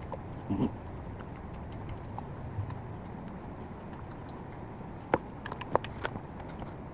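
Eating sounds: a short mouth noise about half a second in, then a cluster of sharp crackles and clicks between five and six seconds in, over a steady background hum.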